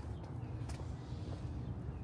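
Street ambience: a steady low city rumble with light footsteps of someone walking and one sharp click a little under a second in.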